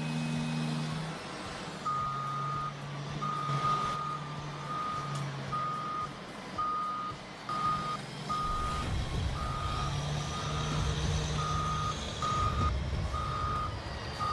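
Reversing alarm on a heavy machine, beeping about once a second over the running engine, which grows louder about halfway through.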